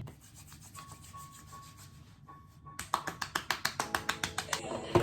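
Rapid, rhythmic rubbing strokes, about eight a second, that start a little past halfway and end in a sharper knock.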